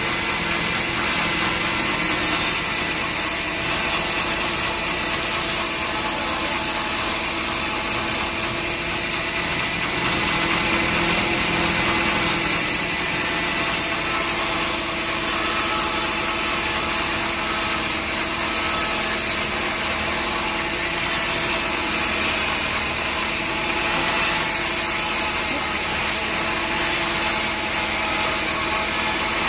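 Sawmill saw cutting steadily through a log, a continuous rasping drone over the hum of the machine's motor.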